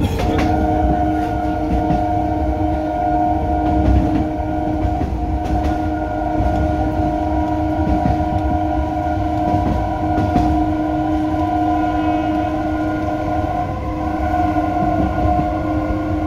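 A suburban local train's horn is held as one long, steady multi-tone blast and cuts off near the end. Under it is the low rumble and knocking of a crowded station platform.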